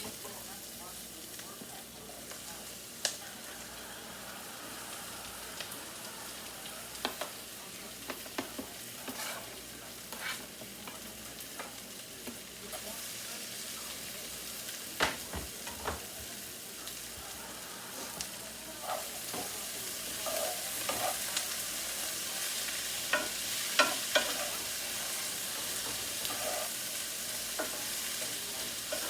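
Potatoes sizzling as they fry in a pan, with occasional knocks and scrapes of a utensil stirring them. The sizzle gets louder about two-thirds of the way through.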